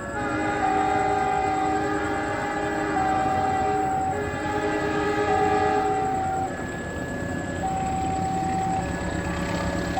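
A train passing, with a loud two-note signal that switches between a low and a higher note about every second.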